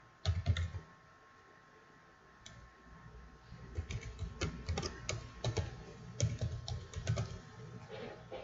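Typing on a computer keyboard: a few clicks just after the start, then a quick, steady run of keystrokes through the second half.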